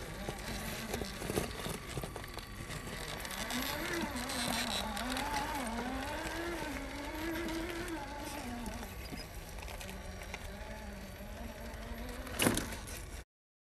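Traxxas TRX-4 Defender RC crawler's electric motor and gearbox whining, the pitch rising and falling as the throttle is worked on a rock climb. A sharp knock near the end, then the sound cuts off abruptly.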